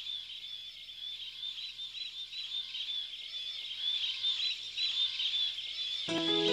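Many birds chirping together in a dense, continuous high chorus. Near the end, music with held notes comes in.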